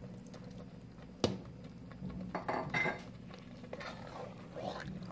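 Wooden spoon stirring corn and milk in an aluminium pressure-cooker pot, scraping and knocking against the metal, with one sharp clink about a second in.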